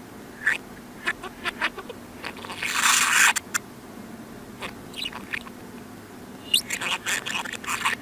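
Budgerigar chatter played in reverse: short chirps and clicks, with a denser scratchy burst about three seconds in and another run of chirps near the end.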